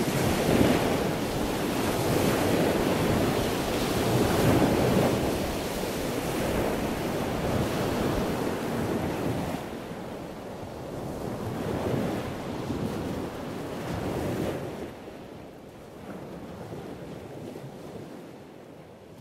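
A rushing, surf-like noise that swells and ebbs in slow surges, louder in the first half, growing quieter from about halfway and dying away at the end.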